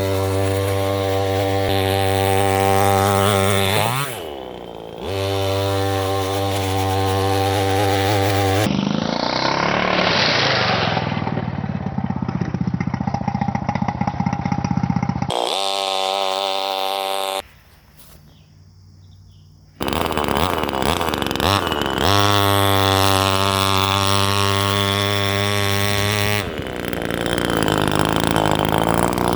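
25cc two-stroke chainsaw engine driving an RC truck, running at high, steady revs. The revs dip and climb back a few times, and the sound drops away briefly about two-thirds of the way through.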